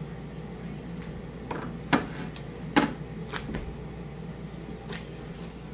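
Kitchen handling noises: a few short, sharp taps and knocks as a flour tortilla is folded into a wrap and set toward an electric griddle, over a steady low hum. The two loudest knocks come about two and three seconds in.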